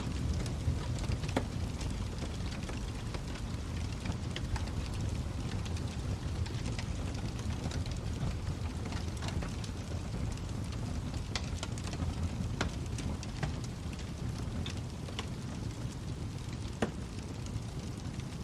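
Wood fire crackling in a fireplace: a steady low rumble of flames under irregular sharp pops and snaps, with one louder pop near the end.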